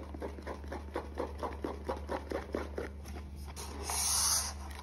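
Pink glue-and-shaving-cream slime being stirred and squished by hand in a plastic bowl: a quick run of sticky, wet clicks and squelches, about four or five a second. Near the end a loud hiss lasts about a second.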